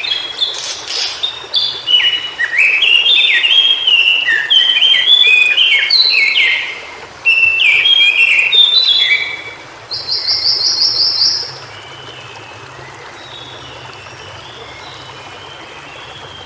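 White-browed shortwing singing: a fast, jumbled warble of short notes that slide up and down. About ten seconds in it ends with a quick, higher trill, and after that only faint scattered notes remain.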